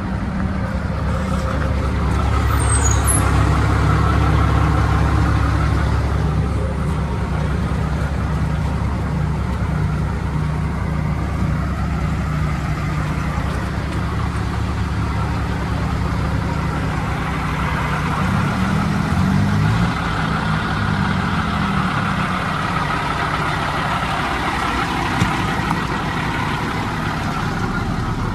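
Diesel engine of a 2006 Peterbilt 379 truck tractor idling steadily.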